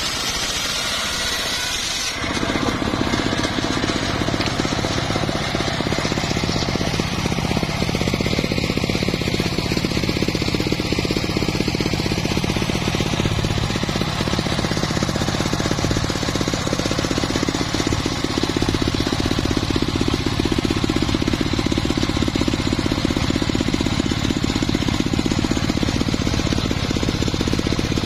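Engine of a homemade circular sawmill running with a fast, rattling beat. For about the first two seconds the steel blade is ripping through wood with a high hiss, then the engine's pulsing drone takes over and grows louder.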